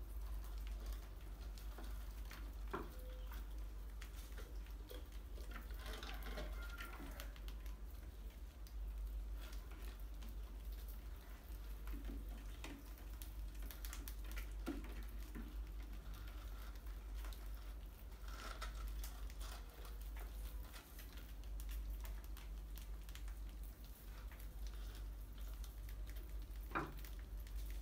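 Small rodents scurrying and scratching on a tile floor and glass jars: scattered light clicks, scrabbles and patters, with a few sharper taps, over a low steady hum.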